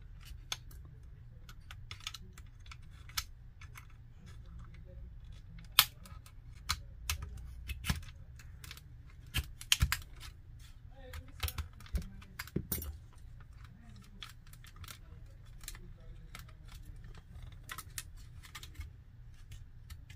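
Irregular light clicks and taps of a hand screwdriver, small screws and the plastic housing of a Huawei 5G router being handled as it is screwed back together, over a low steady hum.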